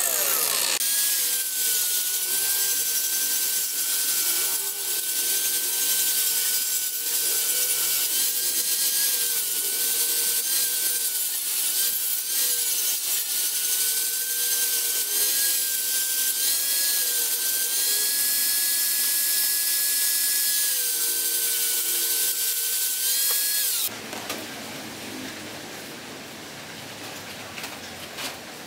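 Angle grinder with an abrasive disc running at a steady whine while grinding the edges of a steel axe head cut from a saw blade. It cuts off abruptly about five seconds before the end, leaving a fainter hiss.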